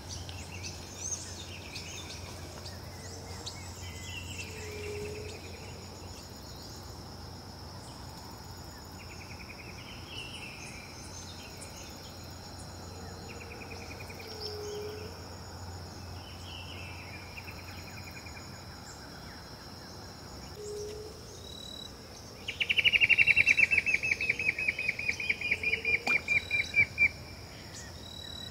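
Wild birds calling and insects buzzing steadily in the background. Near the end a loud, fast trill of about ten pulses a second, falling slightly in pitch, lasts about five seconds.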